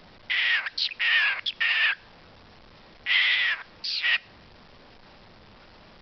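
A talking pet bird calling in short bursts, each dipping in pitch: a quick run of them in the first two seconds, then two more about three seconds in.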